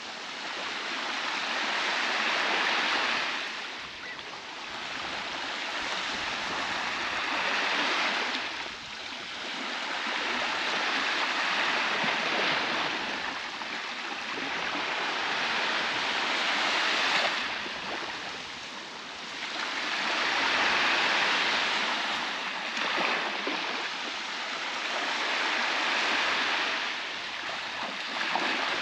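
Baltic Sea waves breaking and washing onto a beach. The surf swells and eases about every four to five seconds.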